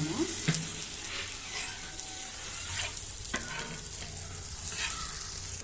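Butter sizzling and bubbling as it melts on a hot flat dosa pan (tawa), a steady hiss. A spatula spreads it over the pan, adding a few short scrapes.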